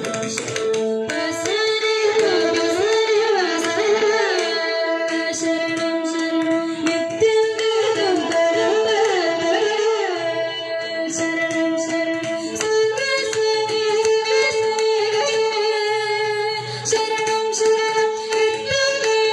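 Carnatic music: a girl sings a winding, ornamented melody with violin accompaniment and hand-played mridangam strokes.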